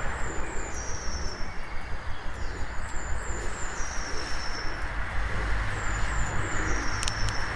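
Dawn chorus in a town centre: a steady rumble of road traffic, with a bird's high, thin notes repeating in short falling runs above it. A couple of sharp clicks come near the end.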